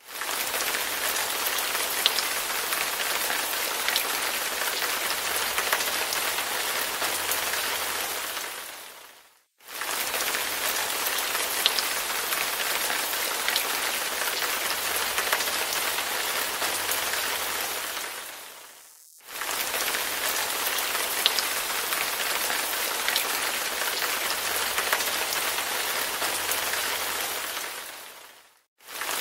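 Steady rain falling, with scattered sharp drop ticks. It fades to silence and straight back in twice, about every nine and a half seconds.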